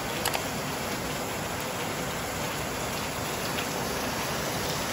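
Heavy rain falling steadily, an even hiss with a few sharper single drop hits.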